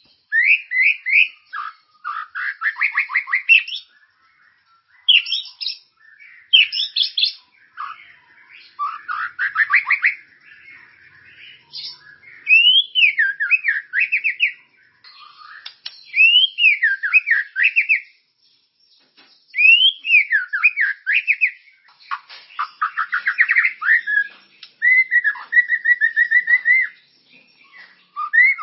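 White-rumped shama (murai batu) in full song: a varied run of fast trills, sweeping whistled notes and chattering phrases, in bursts of a second or two with short pauses between.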